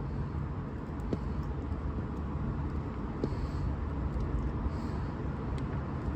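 Steady low background rumble, with a few faint light clicks about a second in, near the middle and near the end.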